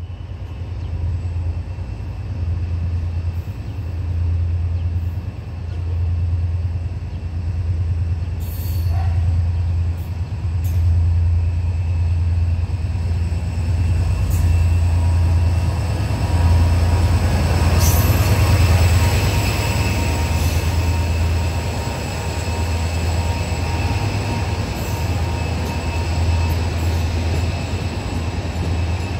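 HŽ 2044-series (EMD GT22HW-2) diesel-electric locomotive hauling a passenger train into the station: a steady low rumble under growing rolling noise, with thin high wheel squeal. Loudest a little past the middle as the locomotive draws level, then the coaches roll by.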